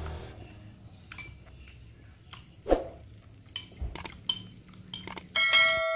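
Metal spoon clinking against a bowl while eating, a string of light separate clinks with the loudest about halfway through. Near the end a ringing bell-like chime starts.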